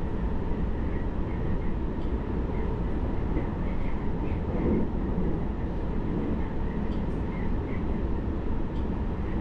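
Steady running noise of a JR Hokkaido 733 series electric train heard from inside the carriage: the low rumble of wheels on rail, with a slightly louder stretch about halfway through.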